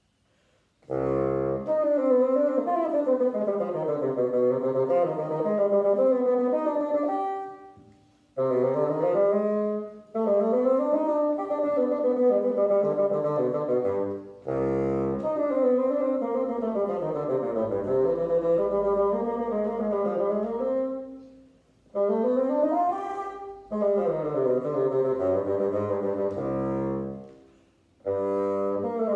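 Solo bassoon playing, starting about a second in: several phrases of running notes and wide leaps up and down, separated by short breaths and rests.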